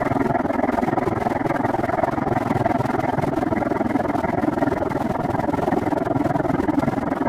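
Steady riding noise from a camera carried on a moving bicycle: wind on the microphone and rolling rumble and rattle from the trail.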